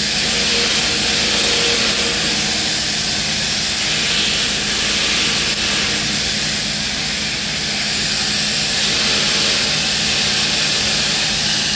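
Wire-feed welding arc with .045 gas-shielded flux-cored wire, running vertical-up at about 25 volts and 317 wire feed speed: a steady, unbroken crackling hiss.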